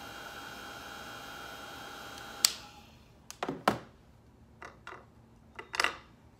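Craft heat gun blowing with a steady whir and whine, switched off with a sharp click about two and a half seconds in. Then a few light knocks and taps as the tool is put down and a hand handles the clay piece on the board.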